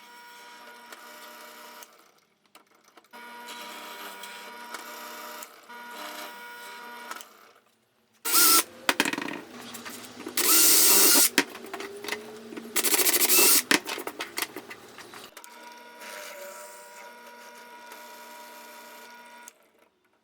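Power drill boring holes through a plywood-and-plexiglass saw plate: three short, loud runs of about a second each, starting about eight seconds in.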